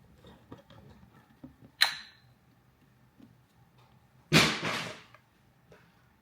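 Two short handling noises: a sharp tap with a brief ring about two seconds in, then a louder short clatter a little past halfway.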